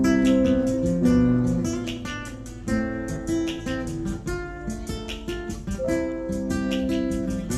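Acoustic guitar played live, strummed and picked chords ringing out and changing about once a second.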